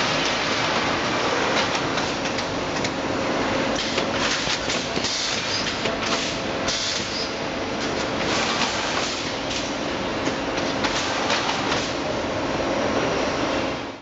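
Ideal GA 400/1600 automatic cable tray welding line running: continuous mechanical clatter with frequent sharp clicks over a steady hum.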